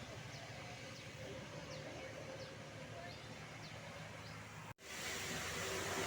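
Quiet roadside ambience: a low steady hum of distant traffic with a few faint, short bird chirps. After a sudden break about three-quarters of the way through, the noise of an approaching vehicle grows steadily louder.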